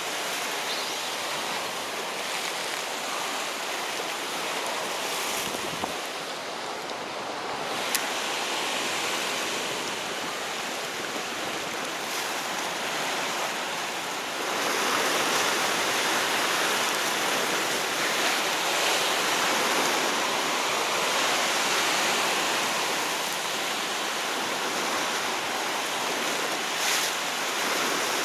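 Sea surf washing on a rocky shore: a steady rush of water noise that grows louder about halfway through. A single sharp click about eight seconds in.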